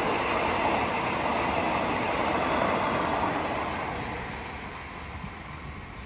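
Railway passenger coaches passing close by, a steady rushing rumble of wheels on rail that fades away after about four seconds.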